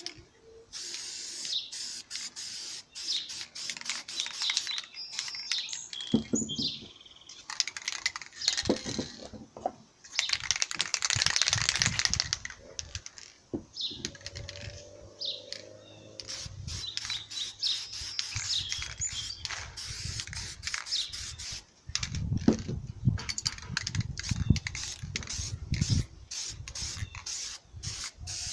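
Aerosol spray paint cans hissing in repeated bursts as paint is sprayed, the longest about ten seconds in, with many short clicks and knocks between bursts. Birds chirp in the background.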